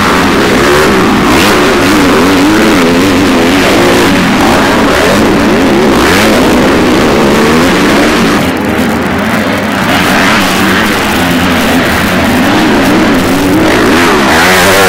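Motocross dirt bike engines revving hard and backing off in quick, wavering cycles as the bikes race past on the track.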